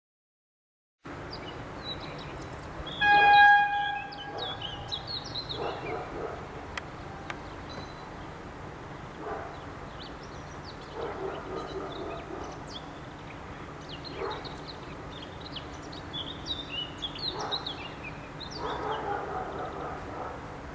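Diesel locomotive running with a low steady engine drone as it creeps in slowly, with one short blast of its horn about three seconds in. A dog barks now and then.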